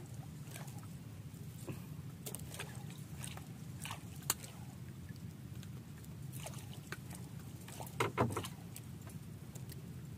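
Scattered small clicks and rattles as a fishing jig, its hooks and leader are handled while a caught fish is unhooked, over a steady low hum. There is a sharp click about four seconds in and a short cluster of louder knocks about eight seconds in.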